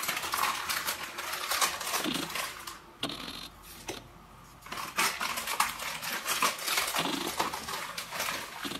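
Powdered bleach poured from a cardboard box into a pot of water: the box rustles and the grains patter, with quick small clicks of handling. Busy at first, quieter for a moment in the middle, then busy again.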